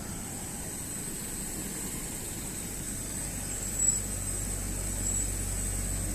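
Steady jet aircraft noise with a thin, steady high whine. There is a short bump about four seconds in, and a low rumble swells after it.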